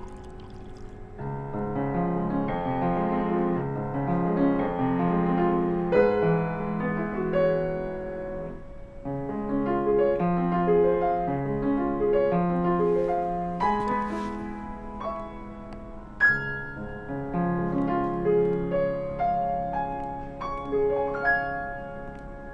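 Solo piano playing a melody over lower chords, with a short pause about nine seconds in.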